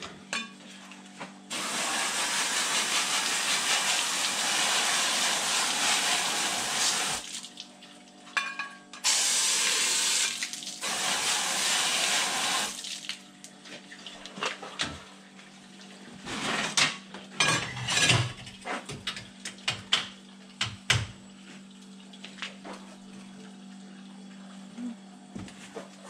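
Water spraying hard from a hose spray gun onto a stainless steel milk filter housing in two long bursts, the first lasting about six seconds and the second about four. Afterwards come scattered clanks and knocks of the stainless parts being handled, over a steady low machine hum.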